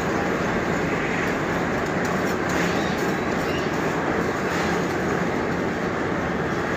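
Construction machinery running steadily during a concrete slab pour, a continuous engine-like drone with a faint clatter over it.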